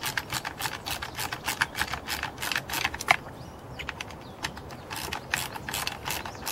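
Ratcheting screwdriver clicking as T20 Torx screws are backed out of a chainsaw's side cover: a quick run of clicks, about five a second, with a break of about a second partway through.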